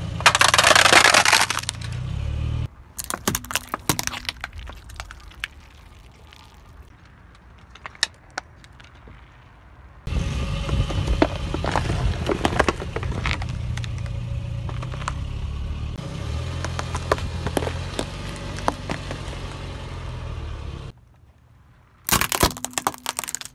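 A car tyre rolling slowly over and crushing objects on asphalt, in separate cut shots. First, clear plastic plates crackle and shatter in a dense burst. From about ten seconds in, cardboard tissue boxes crumple and crinkle under a low rumble, and near the end a plastic toy snaps in a few sharp cracks.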